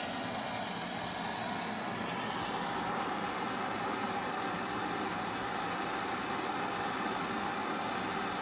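Gas torch burning steadily, heating a rust-seized screw on a cast iron coffin so the metal expands and the rusted threads let go.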